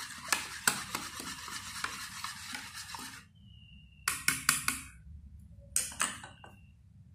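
Wire whisk stirring thin gram-flour and yogurt batter in a bowl: a wet swishing with quick clicks of the wires against the bowl, stopping about three seconds in. Then come a few sharp clicks in two short groups as the whisk knocks against the bowl.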